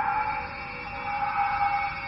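Horror-film soundtrack drone: several high tones held steady with no rise or fall, giving an eerie, siren-like whine.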